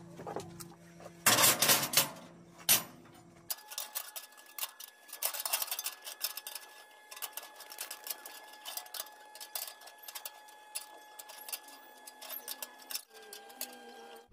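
Stick-welding arc crackling irregularly, with a faint steady whine underneath. In the first few seconds, before the crackle starts, there are several loud knocks over a low hum.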